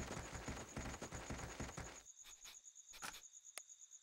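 Quick running footsteps of two children and a puppy on forest ground that fade out about halfway, followed by a few single steps as they come to a stop. Crickets chirp steadily in the background at a high pitch.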